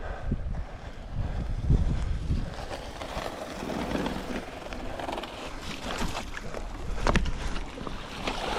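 Mountain bike ridden through shallow flowing floodwater, water splashing and rushing around the tyres.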